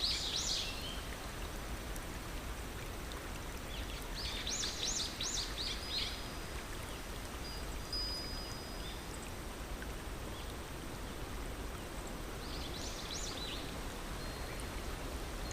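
Steady rushing of a stream, with a songbird singing three short phrases of quick repeated high notes, at the start, about four seconds in and near the end, and a thin high whistle held briefly twice.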